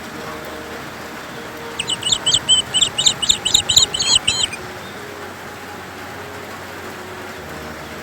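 A songbird singing a quick run of repeated high notes, starting about two seconds in and lasting a little under three seconds, over a steady background hiss.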